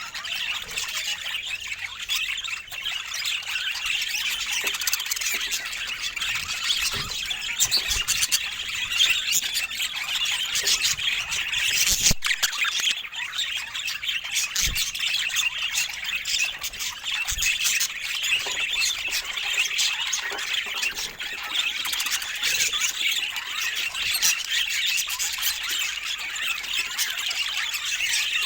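Budgerigars chattering and squawking together, a dense, continuous stream of short high chirps, warbles and squawks, with a few sharp knocks, the loudest about twelve seconds in.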